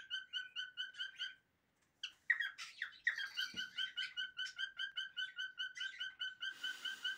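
Cockatiel chirping in a fast, even series of the same clear note, about four a second, with a short pause and then a burst of varied whistles and glides between two and three seconds in. A brief rustle comes near the end.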